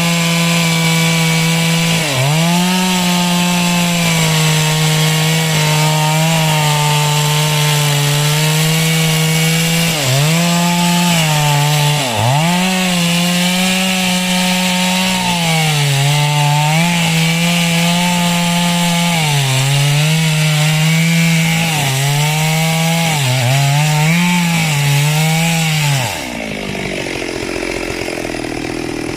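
Two-stroke chainsaw running at high revs while cutting through wood. Its engine note sags briefly under load several times and picks back up. About three seconds before the end the high note drops away and the saw goes quieter.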